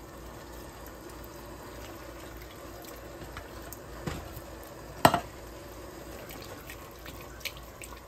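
Beef broth in a one-pot rice dish bubbling at a boil while corn is stirred in with a silicone spatula, a steady wet bubbling. A sharp knock about five seconds in, with fainter taps just before and later, as the spatula hits the pot.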